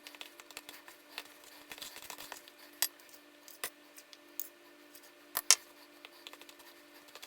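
A utensil clicking and scraping against a mixing bowl as flour is worked into cake batter by hand: quiet, irregular ticks with a few sharper knocks, over a faint steady hum.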